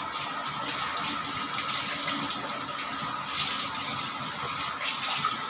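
Water boiling hard in a pot under a glass lid, a steady bubbling hiss, with a thin steady high tone running underneath.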